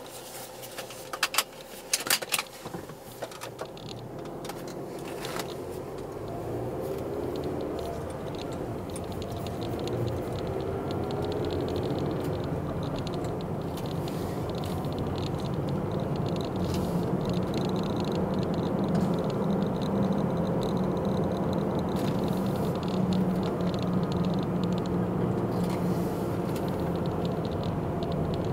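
A car's engine and tyre noise heard inside the cabin as it pulls away and gathers speed, the engine note climbing for several seconds and then holding steady. A few sharp clicks and rattles sound in the first couple of seconds.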